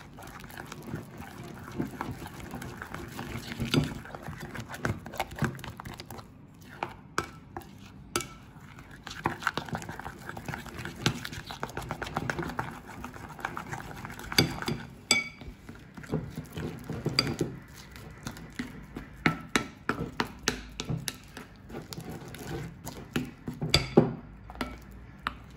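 Plastic stirrer scraping and clicking against a glass bowl while mixing Elmer's glue, confetti and activator into slime as it thickens, with many irregular sharp taps.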